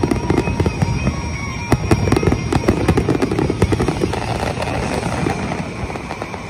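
Fireworks display: aerial shells bursting in rapid, overlapping bangs and crackles, thinning out near the end as the barrage dies down.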